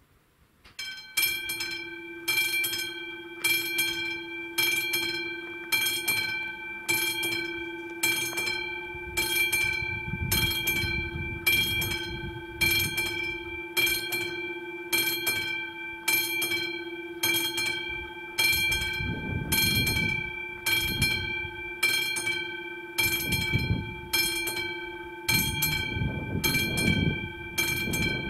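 Level-crossing warning bell, the classic bell of an AŽD 71 crossing signal, starts about a second in and rings evenly at just under two strokes a second, each stroke ringing on: the crossing is warning of an approaching train. Low rumbling comes and goes underneath from about ten seconds in.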